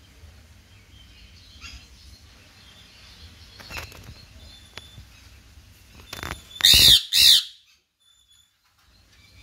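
Male Indian ringneck parakeet giving two loud, shrill squawks in quick succession about two-thirds of the way through, after some fainter calls.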